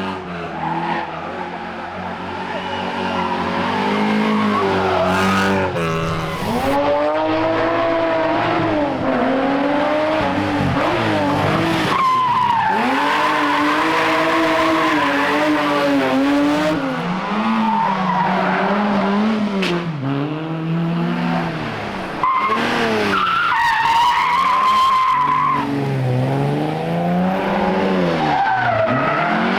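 Historic rally car engines revving hard, again and again, then dropping back through gear changes and lifts off the throttle.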